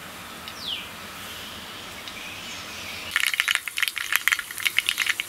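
Mustard seeds in hot oil in an iron kadai, beginning to splutter and pop rapidly about three seconds in after a faint hiss: the oil is hot enough for the tempering.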